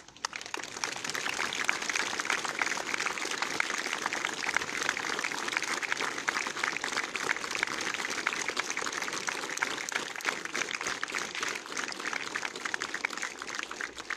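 Applause from ranks of cadets: many hands clapping in a dense, steady patter that starts suddenly and thins out near the end, greeting an award recipient as they are called out.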